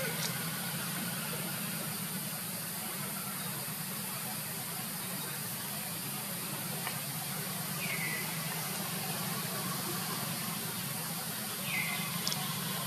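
Steady hiss with a low hum underneath, broken by three short high chirps that fall in pitch: one at the very start, one about eight seconds in and one near the end.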